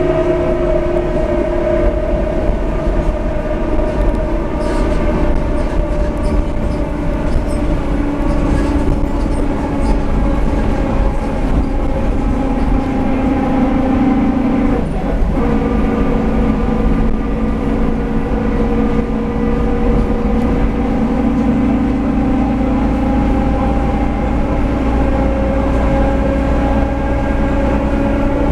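Differential of a Mercedes-Benz OF-1721 city bus whining as the bus drives, a steady gear whine with several tones over the low running of the drivetrain. The whine sinks slowly in pitch through the first half and climbs again towards the end, following road speed.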